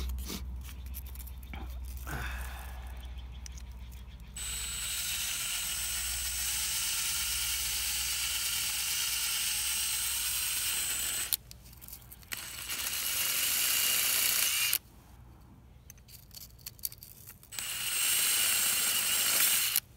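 180-grit sandpaper rubbed by hand on a stainless steel brake caliper slide pin, in long stretches of scratchy hiss that start and stop abruptly, with short pauses between. The sanding is taking corrosion off the pin so it slides freely in the caliper.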